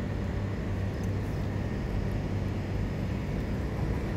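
Steady low background rumble with a faint hum.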